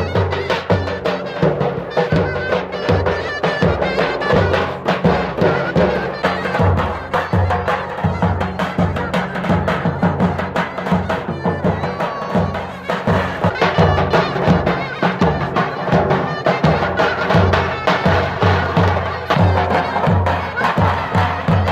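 Davul and zurna playing a lively folk dance tune: the zurna's loud reedy melody over steady deep beats of the davul bass drum, with sharper stick strokes between them.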